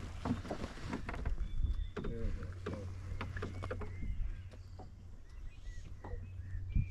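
Lake water lapping against the hull of a small fishing boat, with scattered light knocks and clicks and a louder knock near the end.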